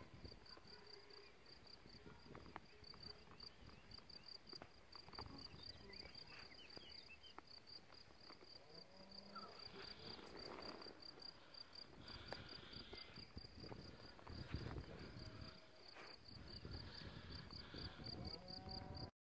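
Faint, steady chirping of an insect, a high note repeated evenly at about five pulses a second, over faint low background noise; it cuts off abruptly near the end.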